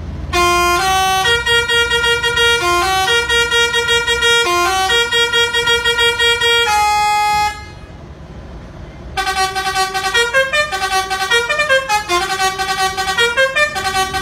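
Mitsubishi Fuso truck's musical horn playing a tune of short stepped notes, in two phrases with a pause of about two seconds between them. The engine runs low underneath.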